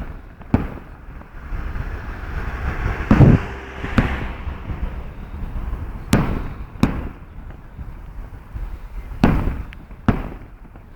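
Festival fireworks bursting in the distance: about seven sharp bangs at uneven intervals, with a steady hiss between them.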